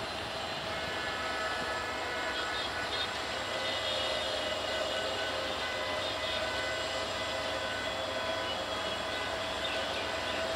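Diesel-electric locomotive hauling a passenger train at low speed, its engine running steadily with a steady hum and growing a little louder over the first few seconds as it approaches.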